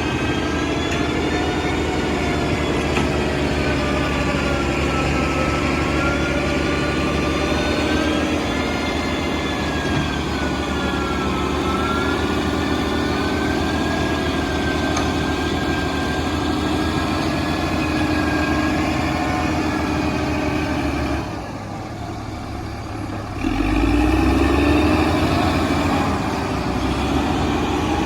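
ACE AX-124 backhoe loader's diesel engine running steadily with a wavering whine over it; about twenty seconds in it dips quieter for a couple of seconds, then revs up louder.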